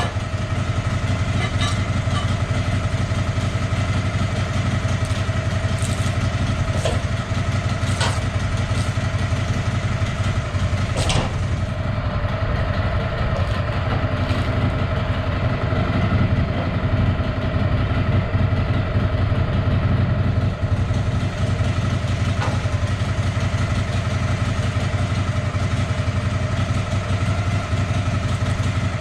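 An engine running steadily at a constant speed, with a few sharp clicks and knocks during the first dozen seconds and one more near the end.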